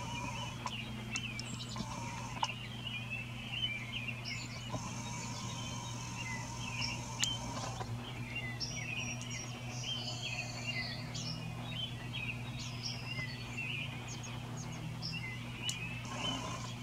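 Many small birds chirping at once, short overlapping calls, over a steady low hum.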